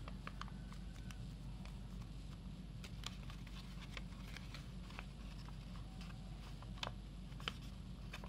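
Origami paper being handled, folded and unfolded: faint scattered crinkles and crisp creasing clicks over a steady low hum, with a couple of sharper clicks near the end.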